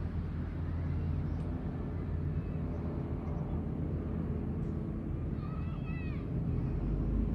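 Outdoor crowd ambience over a steady low rumble, with one voice calling out briefly about six seconds in.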